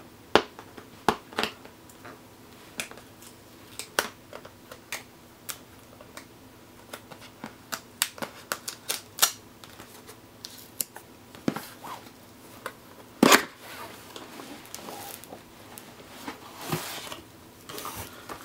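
Hands opening a cardboard retail box: scattered small clicks and taps of fingers and nails on the cardboard as the end flap is worked loose, with one louder knock about two-thirds of the way through and some rustling handling near the end as the lid comes open.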